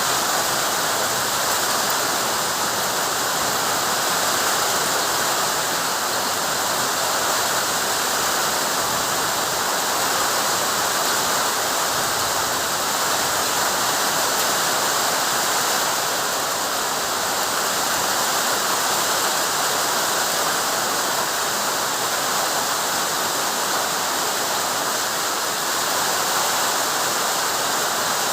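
Heavy rain falling steadily, an even, unbroken hiss of water.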